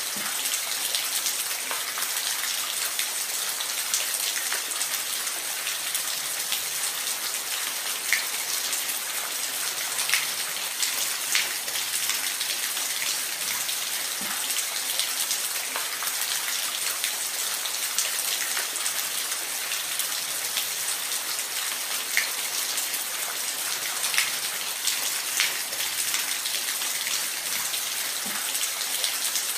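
Steady rain falling in a forest, an even hiss with scattered louder drops pattering close by.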